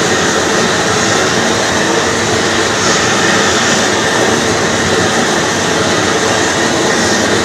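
Gas torches burning with a steady, even rushing noise while heating a copper locomotive boiler for silver soldering.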